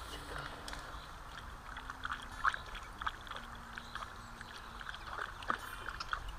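River water trickling and lapping at the bank, with small irregular splashes as hands hold a chub in the water to release it; the sharpest splashes come about two and a half and five and a half seconds in.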